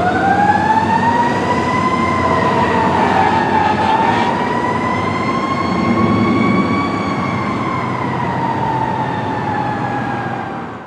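Fire apparatus siren wailing in a slow rise and fall, over the low rumble of the truck's engine and road noise; it fades away near the end.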